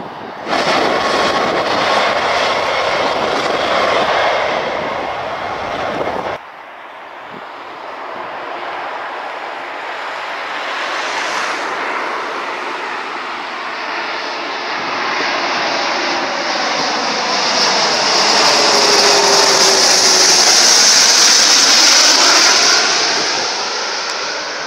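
Airbus A340-500's four jet engines running loud on the runway, broken off abruptly about six seconds in. Then the jet passes low overhead: its engine noise builds steadily to a peak near the end, with whining tones falling in pitch as it goes by, and then eases.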